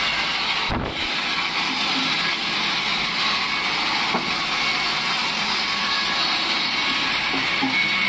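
Large sawmill band saw running steadily, its blade ripping a wooden plank lengthwise.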